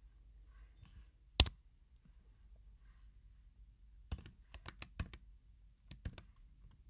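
Typing on a computer keyboard: one loud sharp click about a second and a half in, then a quick run of keystrokes from about four seconds in and a few more near the end.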